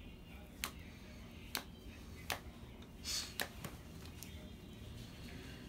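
Sleeved trading cards being handled at a table: four sharp clicks a second or less apart, a short rustling slide a little past the middle, then a few fainter clicks.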